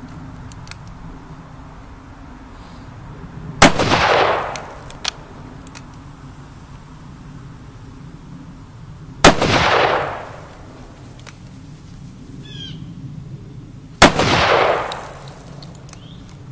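Three handgun shots about five seconds apart, each followed by about a second of echo dying away.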